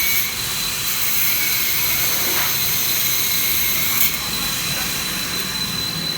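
Angle grinder cutting into a hardened steel 10 mm chain link: a steady high whine from the spinning disc over a loud grinding hiss of metal being cut, with a brief surge about four seconds in.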